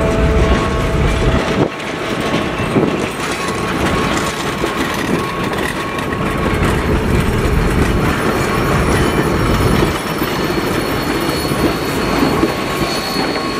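Passenger coaches of a steam excursion train rolling past close by: a steady rumble and clatter of steel wheels on the rails, with faint high-pitched wheel squeal over it.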